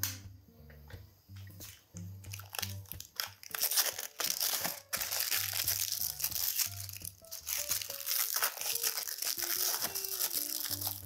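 Plastic film wrapper of a processed cheese slice crinkling as it is peeled open, preceded by a few light clicks of dishes set on a wooden table, over background music.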